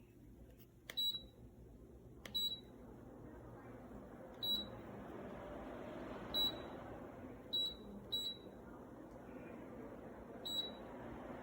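Dreo tower fan beeping at each button press: seven short, high single beeps at uneven intervals. Under them the fan's air rush rises over the first few seconds and then runs steadily, as its speed is stepped up.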